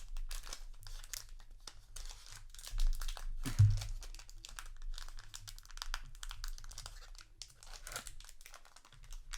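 A trading-card booster pack wrapper crinkling and crackling as hands work at it, trying to tear it open; the wrapper resists tearing. A dull handling thump comes about three and a half seconds in.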